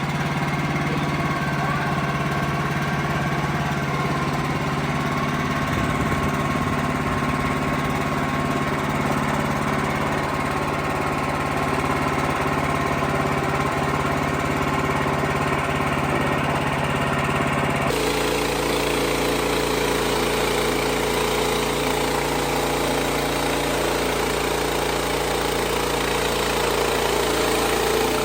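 Wood-Mizer LX55 portable sawmill's engine running steadily. About eighteen seconds in, the sound changes abruptly to a different engine note.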